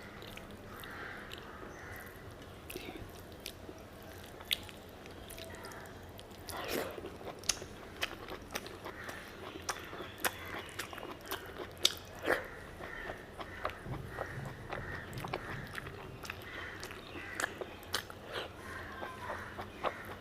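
A person chewing and biting mouthfuls of mutton fat curry with rice, with wet mouth clicks and smacks at irregular intervals.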